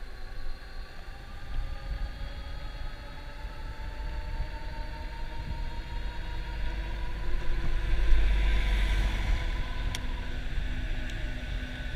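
Electric bike motor whining, its pitch climbing slowly as the bike gathers speed, then dropping out about ten seconds in. Wind rumbles on the microphone throughout, heaviest a little past the middle.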